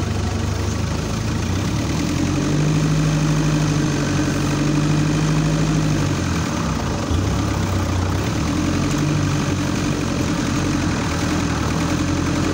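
Off-road vehicle's engine running at low speed, heard from on board. The engine note rises about two seconds in and holds, drops back about six seconds in, then picks up again.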